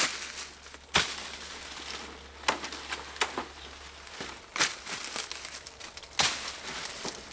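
Dry stalks and leaf litter crackling and snapping in thick undergrowth as plants are pushed through and pulled at. There are about seven sharp cracks at irregular intervals over a continuous rustle.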